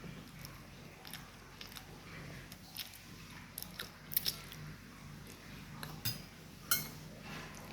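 Close-up mouth sounds of someone eating Indomie instant noodles: chewing with scattered sharp wet clicks, the loudest about four and six and a half seconds in.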